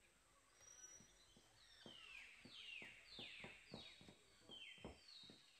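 Faint, regular footsteps on stone steps. About two seconds in a bird starts calling over them, about five falling notes in a row.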